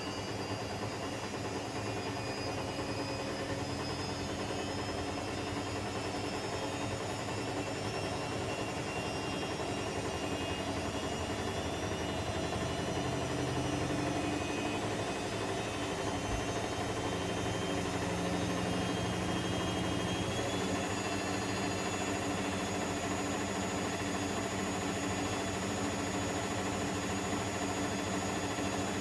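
Electrolux EWF10843 front-loading washing machine spinning, a steady loud mechanical drone with several whining tones that step up slightly in pitch about two-thirds of the way through. It is an abnormally loud noise for the machine at an 800 rpm spin with a nearly empty drum.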